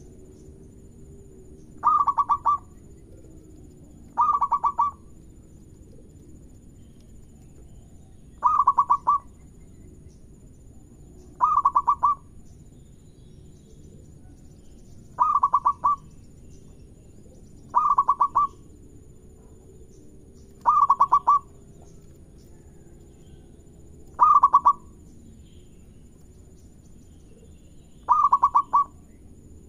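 Zebra dove (perkutut) cooing: a short, rapid stuttering coo phrase repeated nine times, one about every three seconds.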